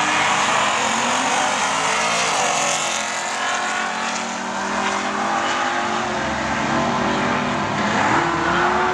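Two cars, a white sedan and a red station wagon, launching off the drag-strip start line and accelerating hard down the track, side by side. Their engine notes climb and fall back at each gear change, about two and a half seconds in and again near the end.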